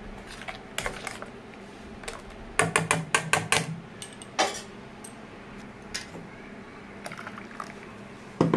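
Steel utensils clicking and knocking against a steel bowl of lassi: a quick run of about eight clicks starting about two and a half seconds in, then a few single knocks.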